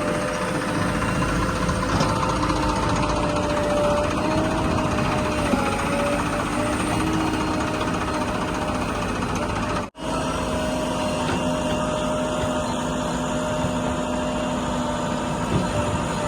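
JCB 3DX backhoe loader's diesel engine running steadily under load, with a hydraulic whine whose pitch dips briefly now and then. The sound cuts out for an instant about ten seconds in.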